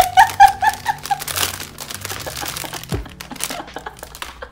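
Clear plastic bag crinkling as a bundle of paper napkins is pulled out of it and handled, with a soft thump about three seconds in as the bundle is set down on a cutting mat. Soft background music runs underneath.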